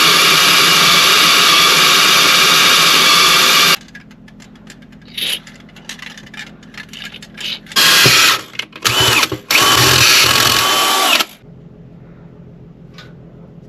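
Power drill drilling into a floor safe to open it: it runs steadily for about four seconds and stops, then starts and stops in several short bursts, with a final run of about a second and a half.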